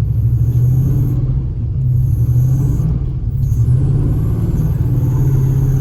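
LS-swapped pickup truck's V8 engine running steadily under way, a loud continuous low drone.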